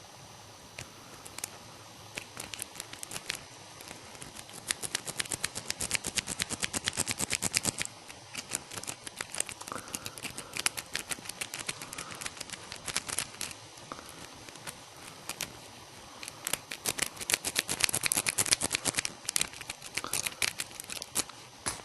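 Lock pick worked rapidly in the keyway of a scooter ignition lock held under a tension wrench, clicking and scraping over the pins. The clicking comes in two long runs of fast clicks, one a few seconds in and another past the middle, with scattered clicks between.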